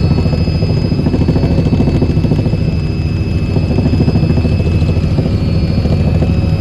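Helicopter in flight: a steady, rapidly beating rotor and engine noise with a thin, steady high whine above it.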